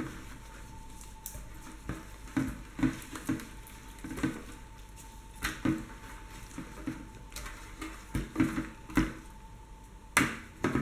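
Dishes and kitchen utensils knocking and clinking at an irregular pace, with a louder clatter near the end.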